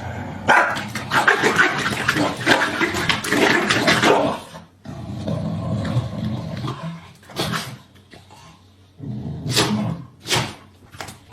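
A dog barking and whimpering, with a dense stretch of noise over the first few seconds and several short sharp sounds near the end.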